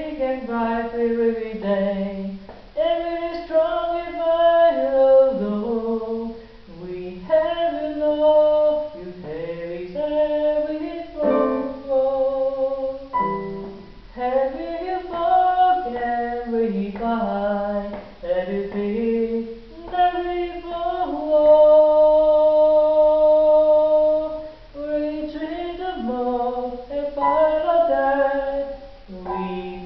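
A man singing phrase by phrase while playing an electric keyboard, holding one long steady note about two-thirds of the way through.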